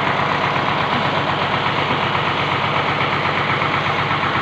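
Engine of a band sawmill running steadily at constant speed, an even drone with a fast, fine pulse.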